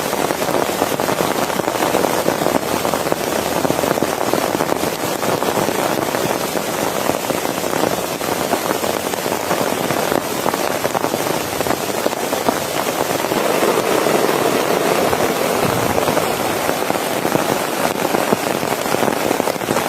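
Steady, dense rain, a continuous pattering of many drops landing on a surface.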